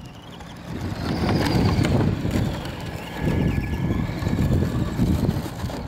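Wind buffeting the microphone in heavy low gusts, the loudest sound, over the thin high whine of a Traxxas 1/10 Ford Fiesta ST Rally RC car's brushed electric motor, rising and falling in pitch as the car drives.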